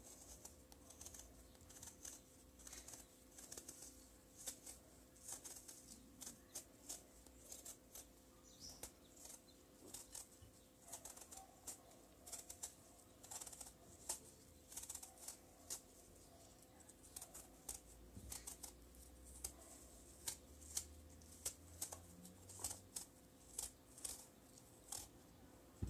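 Apples being peeled by hand, the blade cutting through crisp skin and flesh in many quiet, irregular ticks and scrapes.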